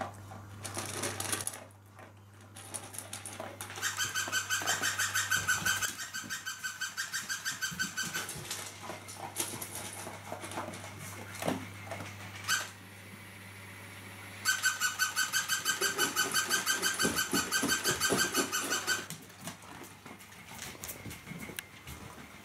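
Rapid, evenly pulsed high squeaking in two spells of a few seconds each, the second one longer, with soft knocks and rustles between them.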